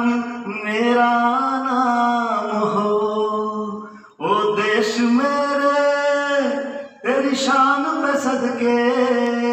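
A man singing solo with long held notes, in three phrases with short breaks about four and seven seconds in.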